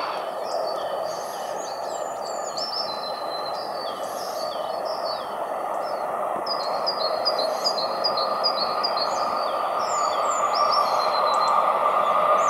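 Small birds chirping and twittering over a steady rumble from an approaching freight train hauled by a diesel locomotive. The rumble grows louder, and a steady engine hum comes up in the second half.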